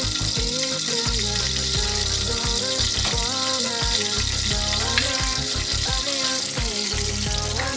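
Butter melting and sizzling in a small saucepan over a gas flame, a steady hiss, with background music playing over it.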